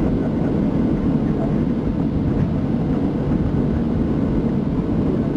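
Steady low engine hum and rumble inside the cabin of a Boeing 737 airliner taxiing.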